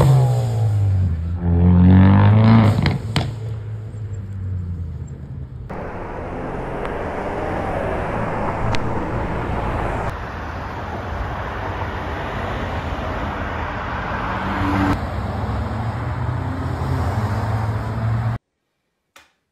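A car engine accelerating away, its pitch dropping then climbing again over the first few seconds. Then steady road traffic noise, which cuts off near the end.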